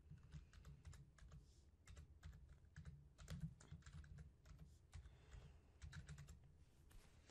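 Faint typing on a computer keyboard: a string of irregularly spaced key clicks as a short phrase is typed.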